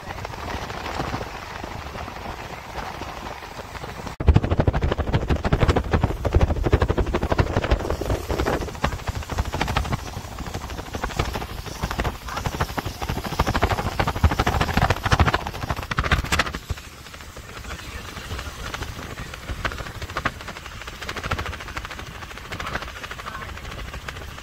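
Road and wind noise from a moving vehicle. From about four seconds in until about sixteen seconds, heavy wind buffeting on the microphone makes it much louder and deeper, starting and stopping abruptly.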